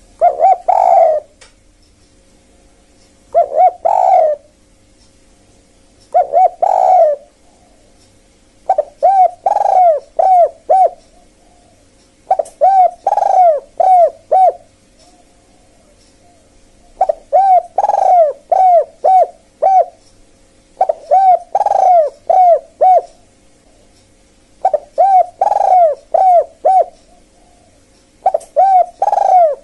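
Spotted dove cooing its 'kuk-kuk' call, the call used to lure spotted doves. The phrases are loud and repeat every few seconds. The first three are short and single; the later ones are runs of three to five quick notes. A faint steady hum runs underneath.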